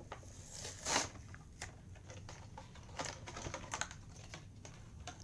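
Toy packaging being handled and opened: scattered light clicks and crinkles of plastic blister and card, with a louder rustle about a second in.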